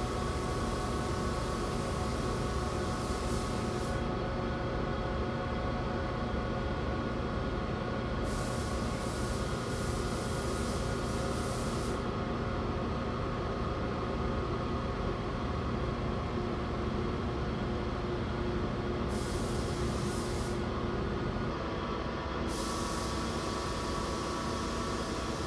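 Shop air equipment running steadily during spray painting: a constant hum with several steady tones. A higher hiss starts and stops about four times.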